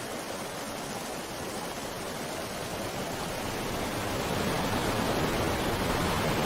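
Steady rushing noise, like running water or hiss, with no distinct events, growing gradually louder from about halfway through.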